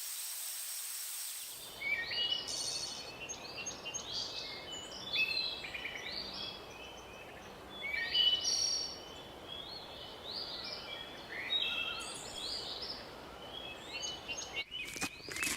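Many birds chirping and calling in short, often rising notes over a steady outdoor hiss. For the first second and a half a steady high buzz plays, then cuts off suddenly. A few sharp clicks come near the end.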